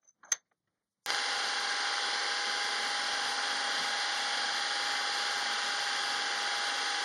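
Milling machine face mill cutting a metal block: a steady, even cutting sound with a constant whine, starting about a second in after a moment of silence and a single click.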